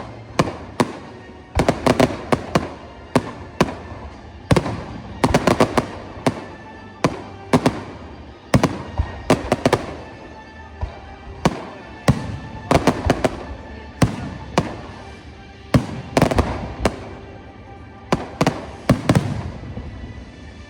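Fireworks display: repeated sharp bangs and crackling bursts of aerial shells, several a second in clusters, over music played along with the show.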